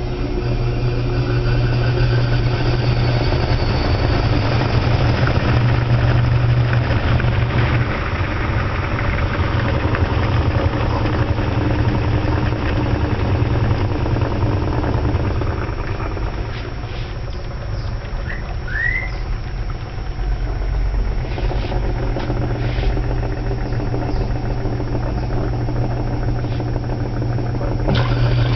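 Electrolux washing machine running mid-cycle: a steady low motor hum with a rougher, uneven noise over it and a few light clicks after the middle.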